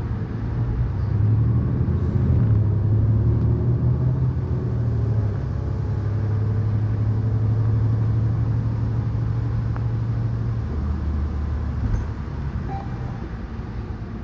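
A 2019 New Flyer XN40 bus's Cummins L9N natural-gas engine, heard from inside the cabin, running under load as the bus drives along. It makes a low, steady drone that gets louder about a second in and drops to a lower pitch about eleven seconds in, as the ZF EcoLife automatic transmission shifts up.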